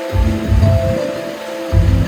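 Background music: held melody notes over a deep, pulsing bass line.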